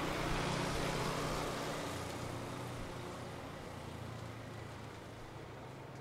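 Small delivery motor scooter passing close by and riding away. Its engine hum is loudest in the first second, drops a little in pitch and fades steadily.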